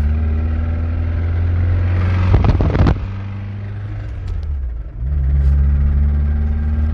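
Nissan 240SX's four-cylinder engine running under way, heard from inside the cabin; the engine is blown and losing power, which the driver takes for something bent inside. A short loud noise comes about two and a half seconds in, then the engine goes quieter and lower before its note climbs back up about five seconds in.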